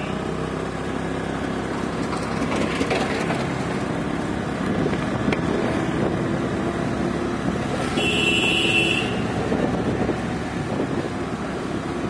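Motor scooter running along a road, its engine and road noise steady while riding in traffic. About eight seconds in there is a brief high-pitched beep.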